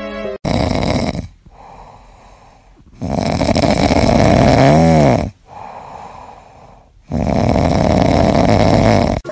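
Ginger cat snoring in deep sleep: three loud snores a few seconds apart, with quieter breaths between. The middle snore has a short whistling note that rises and falls.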